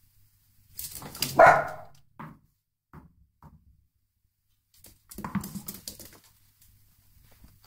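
Dachshund barking: one loud bark about a second and a half in, followed by a few short, quieter yips. About five seconds in, a short burst of clattering and clicks.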